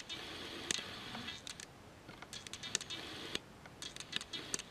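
Faint, irregular light clicks and taps over quiet room hiss.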